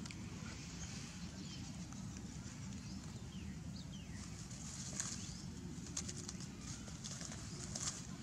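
Outdoor ambience: a steady low rumble with a few faint bird chirps, and short crackles of dry leaves as a baby macaque moves about on the leaf litter, several of them in the second half.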